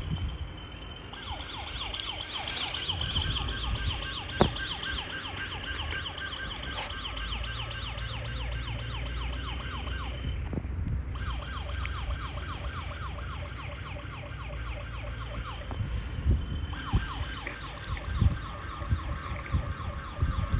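A battery toy's electronic siren warbling, a rapid run of pitch sweeps about four a second, that cuts off twice for about a second and starts again. A sharp knock sounds about four seconds in, and a few knocks come near the end, over a low rumble.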